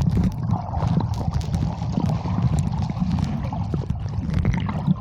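Muffled, low rushing of waterfall water, with scattered small knocks.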